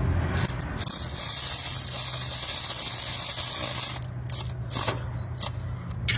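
12V cordless electric ratchet wrench running steadily for about three seconds, spinning out a 10mm nut, then stopping, with a few light clicks after it stops.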